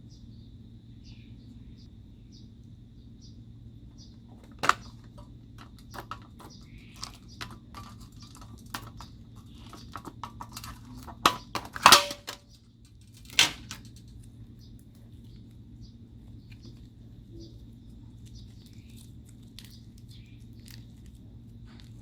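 Slime being worked and mixed by hand: scattered sticky clicks and pops, busiest in the middle, with a few sharp, louder snaps near the middle, over a steady low hum.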